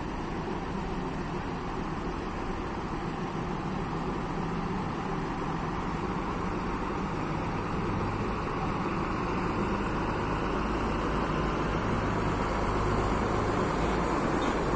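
Diesel engine of a large intercity coach pulling slowly away and approaching, growing steadily louder as it comes closer, its low engine hum strengthening in the second half.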